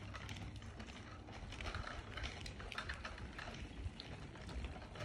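Footsteps of a person walking on a tarmac path: irregular light scuffs and taps a few times a second, over a low wind rumble on the phone microphone.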